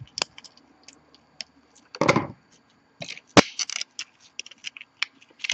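Side-cutting nippers snipping support material off a white 3D-printed plastic part: irregular sharp clicks and snaps as bits of plastic break away, with scraping of the plastic in gloved hands. The loudest moments are a longer crunch about two seconds in and a sharp snap about three and a half seconds in.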